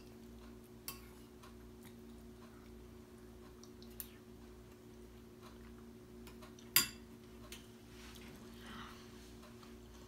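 A metal spoon clinking against a bowl a handful of times as someone eats porridge, the loudest clink a little before seven seconds in, over a steady low hum.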